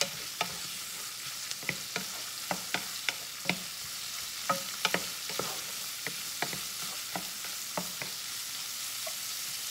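Diced salami and peppers frying in oil in a pan, a steady sizzle as the salami browns, while a spoon stirs them with irregular knocks and scrapes against the pan.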